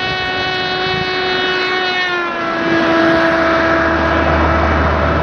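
Car horn held down as the car drives past, its steady pitch dropping about two seconds in as the car goes by: the Doppler effect, higher while approaching, lower while receding. Low road noise of the passing car grows after the drop, and the sound cuts off suddenly at the end.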